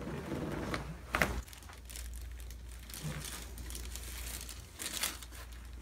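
Crinkling and rustling of movement on a chiropractic treatment table, with a sharp click about a second in and a few softer ones around five seconds.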